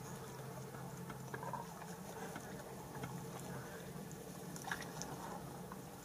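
Faint steady low hum of an idling vehicle engine, with light scattered pattering and a few small clicks, the sharpest about three-quarters of the way through.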